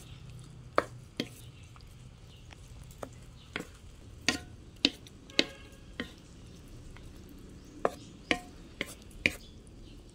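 A cooking utensil knocking and scraping against the pan as chicken wings are stirred into a thick sauce. About a dozen sharp knocks come at uneven intervals, some with a short ring.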